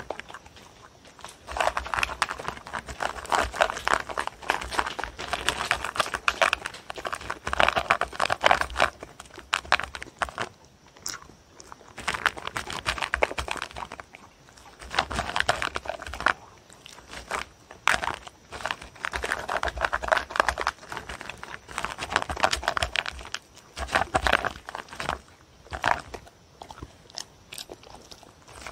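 A dog eating from a paper bowl: rapid, clicky chewing and mouthing of its food in bursts of a few seconds with short pauses between.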